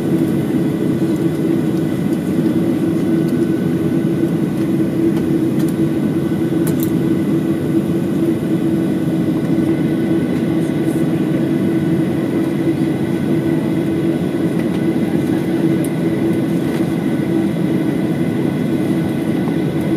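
Jet airliner cabin noise while taxiing: the engines run at idle with a steady low hum and faint high-pitched tones over a constant rush of air.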